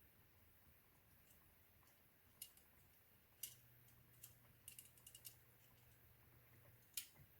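Near silence with scattered faint, light clicks from utensils and thinly sliced beef being laid onto a sandwich roll, and a faint low hum in the middle.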